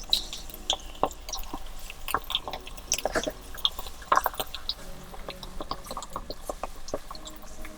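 Battered chicken drumettes deep-frying in hot oil, crackling and popping irregularly.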